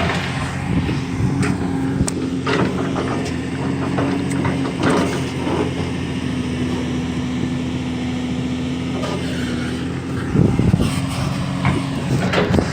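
Excavator's diesel engine running steadily, with scattered clanks and knocks from the machine at work in its first few seconds and a louder, rougher stretch about ten seconds in.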